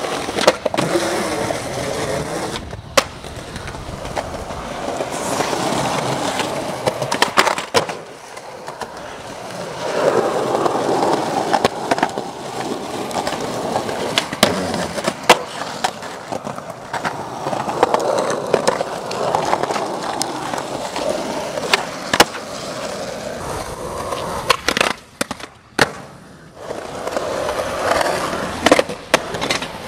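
Skateboard urethane wheels rolling on concrete and asphalt, the rolling noise swelling and fading over several runs, with many sharp clacks as the board pops and lands.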